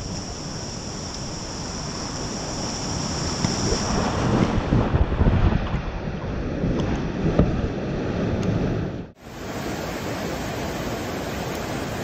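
Rushing whitewater around a whitewater kayak as it drops through a steep creek rapid, louder and choppier in the middle with irregular splashes. About nine seconds in it cuts to the steady rush of the creek pouring over a ledge.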